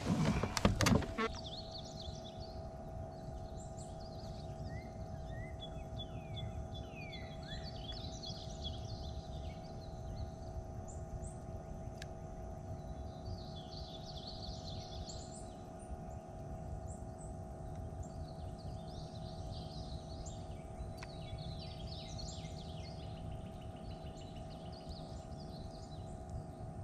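A steady mechanical hum with several fixed pitches over a low rumble, like a small electric motor running. Birds chirp on and off over it, and there is a brief louder noise in the first second.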